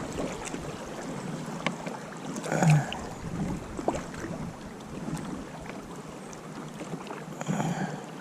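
River water moving around a fishing kayak, a steady rushing noise, with a few scattered knocks and clicks and a louder bump about two and a half seconds in.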